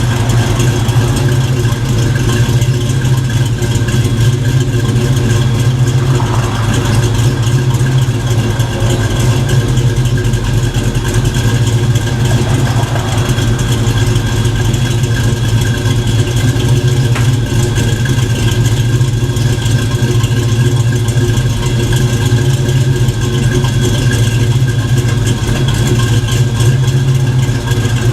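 Fox-body Mustang engine idling steadily.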